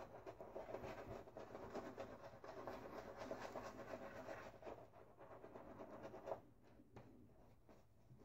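Silvertip shaving brush scrubbing shave-soap lather into a bearded face: a faint, scratchy brushing, dense for about six seconds, then sparser with a few soft strokes near the end.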